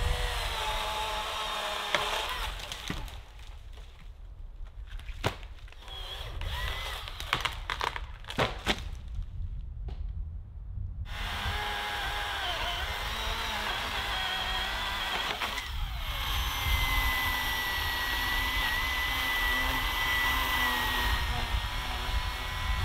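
Electric chainsaw cutting through fallen logs, its motor running steadily under load. In the middle it goes quieter, with sharp cracks and snaps of breaking wood, before the saw runs steadily again.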